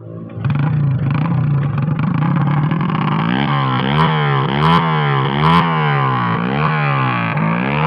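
Modified Honda CD70 motorcycle's single-cylinder four-stroke engine running, then revved up and down in quick repeated blips, about one and a half a second. A few sharp pops come near the middle.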